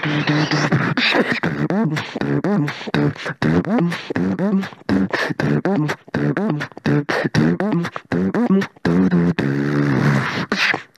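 Solo beatboxing with one hand cupped over the nose: hummed melody lines that slide up and down, laid over a fast run of sharp clicks and snare hits. It breaks off at the very end.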